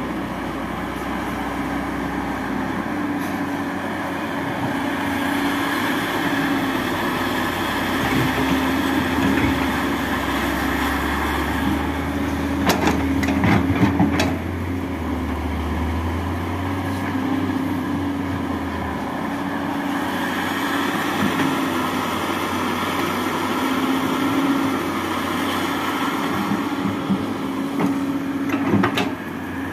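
Diesel engine of a Sany SY215C hydraulic excavator running steadily under digging load, its note wavering a little. There is a cluster of knocks and clanks about halfway through and a few more near the end.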